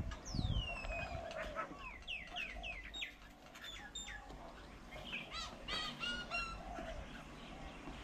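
Birds calling: a run of clear whistles sliding down in pitch, several in quick succession over the first three seconds, then a quicker series of short notes about five to six seconds in.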